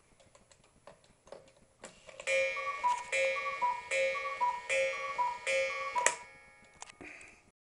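Henry Coehler cuckoo clock: a few mechanical clicks as its minute hand is pushed round, then the cuckoo calling five times, each a falling two-note call, ending with a sharp click about six seconds in.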